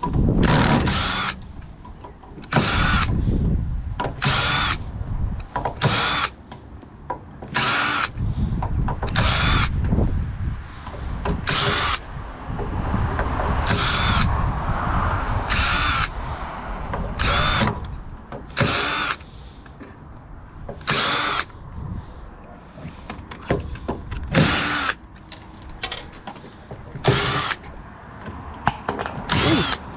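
Power drill run in short bursts, about one every one to two seconds, while a gas hot water unit is dismantled.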